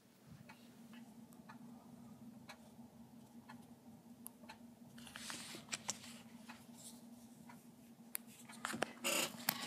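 Faint taps and handling noise as a finger presses buttons on a touchscreen phone to place a call, over a low steady hum. A louder rustle and clicks come near the end.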